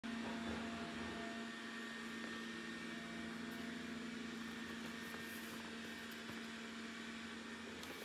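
Steady low electrical hum over a faint hiss, with a few faint taps as a cardboard product box is picked up and turned in the hands.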